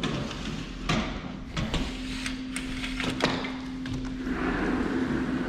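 A door being handled: several sharp clicks and knocks in the first few seconds, then a short sliding scrape near the end, over a steady low hum.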